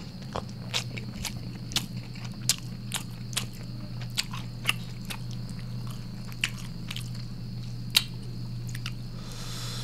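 Close-miked eating by hand, a mouthful of rice and side dishes: wet chewing with sharp, irregular mouth clicks and smacks, the loudest one a little before the end. A steady low hum runs underneath.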